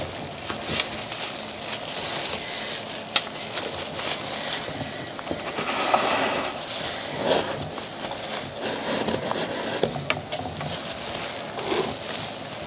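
Small bristle brush scrubbing the upper of an elephant-print Air Jordan 5 sneaker, a continuous scratchy rasp with scattered small clicks.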